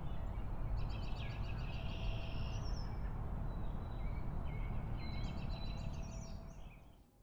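Rural outdoor ambience: birds chirping in short bursts of calls over a steady low rumble of background noise, fading out just before the end.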